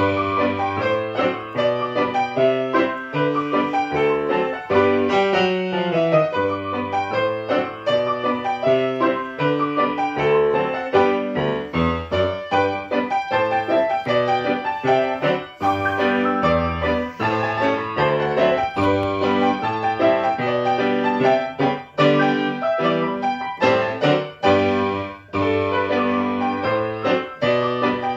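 Grand piano played four hands, two players at one keyboard, a brisk piece of many struck notes that begins abruptly out of silence.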